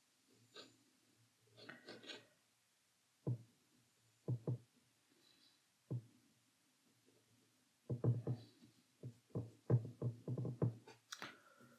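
A paintbrush dabbing and scrubbing on rough watercolour paper: faint, irregular taps, a few single ones at first, then a quicker run of them near the end.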